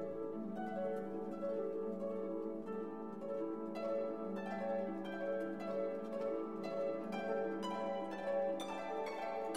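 Background instrumental music: plucked string notes over sustained lower notes. The plucked notes grow busier about four seconds in.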